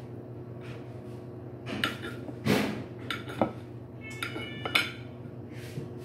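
A kitchen knife clinking and scraping against a plate while Velveeta cheese is cut into cubes. It gives several sharp clinks, some with a brief ring, between about two and five seconds in.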